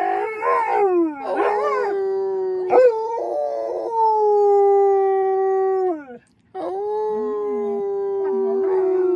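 Wolfdog howling: a long, steady howl that wavers at first, then falls away and stops about six seconds in. A moment later a second long howl begins.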